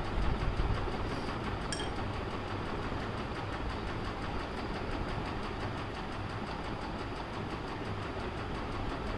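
Steady low rumble with hiss over it, unbroken throughout, with one faint click about two seconds in.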